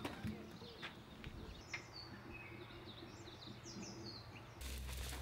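Faint birds chirping, with short rising and falling calls scattered through the middle, and a few soft knocks in the first two seconds. A steady low hum comes in suddenly near the end.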